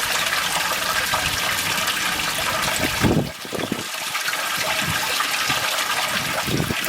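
Steady rush and splash of running water at a garden koi pond, with a brief dip in level a little after three seconds.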